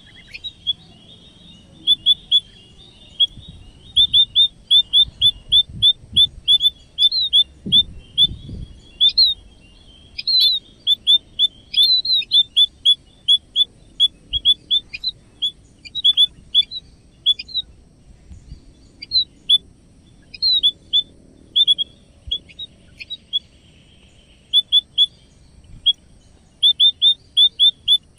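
Munias chirping in rapid runs of short, high cheeps, several a second, broken by brief pauses.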